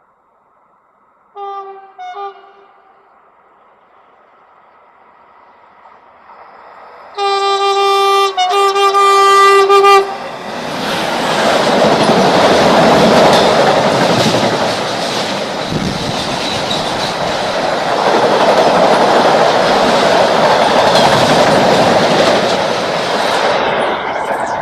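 Renfe train sounding its horn, two short toots and then one long blast, as it approaches, then passing close by with a loud, steady rush of wheel and rail noise that eases near the end.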